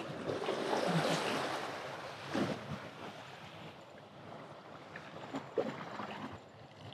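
Small surf waves washing on the beach, swelling in the first couple of seconds and then easing, with wind on the microphone and a few faint clicks.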